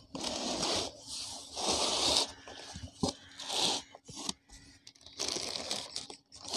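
Cardboard box flaps and plastic fish-shipping bags rustling and crinkling as they are handled, in about four bursts with a few sharp clicks between them.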